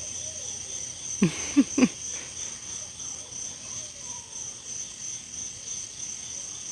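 Night insect chorus of crickets and other bugs, a steady high-pitched drone. About a second in, three short, loud sounds cut in briefly.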